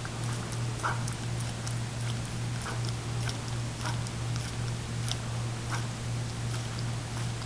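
A greyhound licking frozen dog ice cream out of a small cup: irregular small licking and smacking clicks, about one or two a second, over a steady low hum.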